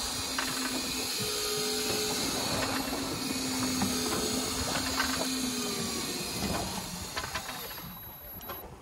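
Steady hiss of wind and sea noise aboard a boat, with a few sharp clicks and faint low tones; it dips briefly near the end.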